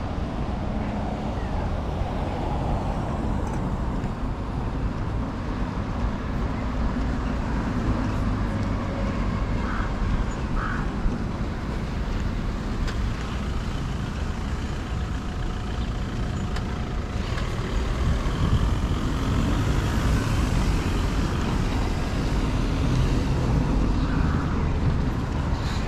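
City street traffic: cars and buses running past in a steady rumble, louder in the last several seconds as an articulated city bus moves close by.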